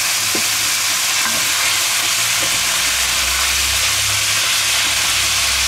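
Minced meat sizzling as it browns in an enamelled cast-iron cocotte, a steady frying hiss, stirred with a wooden spatula.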